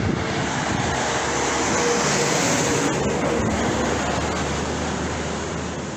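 A car passing close by: its tyre and engine noise swells, is loudest around the middle, and fades toward the end.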